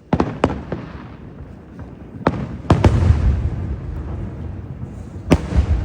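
Fireworks bursting: seven sharp bangs, three in the first second, three more between two and three seconds in, and one near the end. Each bang is followed by a low rolling rumble.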